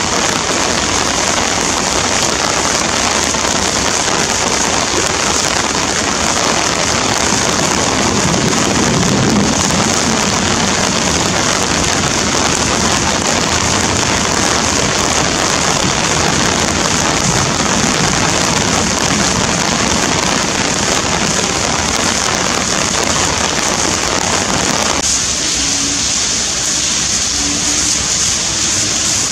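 Torrential rain pouring down in a dense, steady hiss. A low rumble of thunder swells about eight to ten seconds in. Near the end the rain sound suddenly turns thinner.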